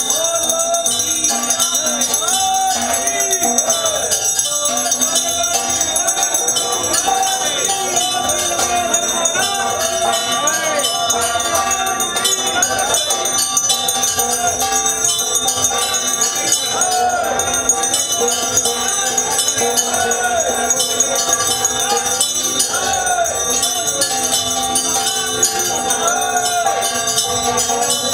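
Brass hand bell (ghanti) rung continuously during a Hindu temple aarti, its bright ringing running throughout, with voices singing the aarti hymn underneath.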